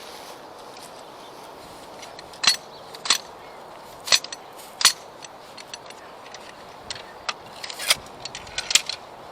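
Sharp knocks and clicks of hand-tool work while a turf plug is set into its hole on a bowling green: about six loud ones at irregular intervals with smaller ticks between, over a steady background hiss.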